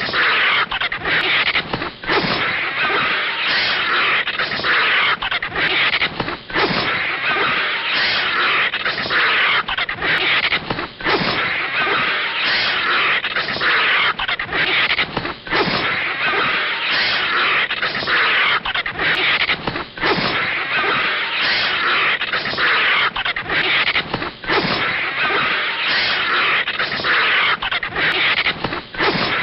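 Animated animal-fight sound effects of a vulture and a snake: a harsh, continuous din of animal cries and hissing, broken by brief gaps every second or two.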